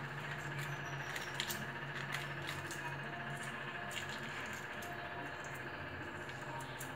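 Scattered small clicks and crackles of a boiled egg's shell being picked off by hand, over a steady low hum.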